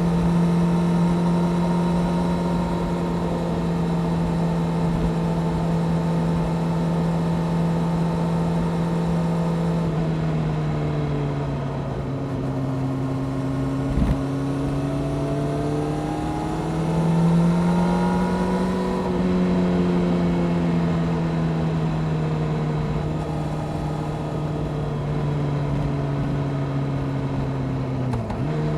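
Honda CBR600F Sport's inline-four engine, fitted with a Delkevic exhaust, running under way. It holds a steady pitch for about ten seconds, then drops and rises and falls as the throttle changes. There is a short sharp knock about halfway, and near the end the pitch dips and then jumps back up.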